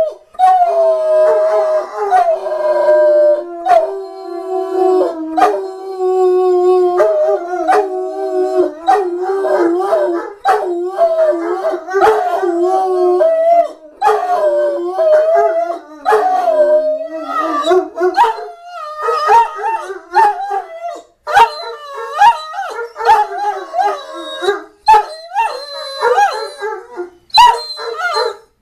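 A Great Dane howling: long, drawn-out howls through the first half, breaking into shorter, choppier howls and yips later on.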